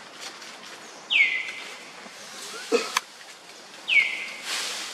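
Two short high bird chirps, each sliding down in pitch, about a second in and about four seconds in, with a sharp click near three seconds.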